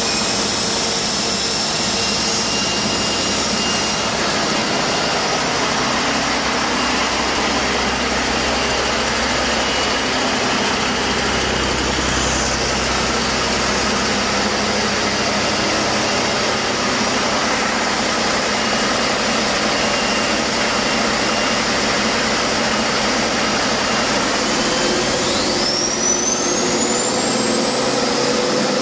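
Cummins X15 inline-six diesel engine running steadily on a test stand, with a whine that rises in pitch near the end.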